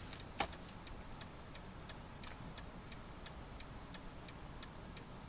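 Light, regular ticking inside a Toyota Alphard's cabin, about three ticks a second. One sharper click comes about half a second in.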